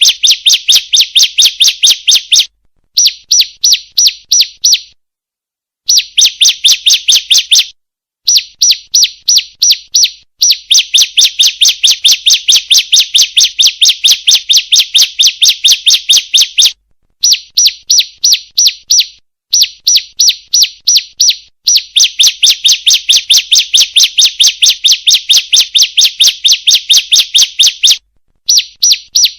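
Female bar-winged prinia (ciblek) calling, played as a lure recording: a rapid, even series of short high chips, about five a second, in runs of a few seconds separated by brief silent gaps.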